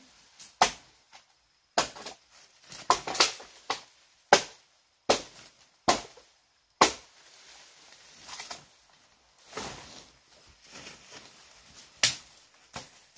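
A series of sharp chopping strikes at uneven intervals, some coming in quick runs of two or three, with fainter scraping and knocking between them.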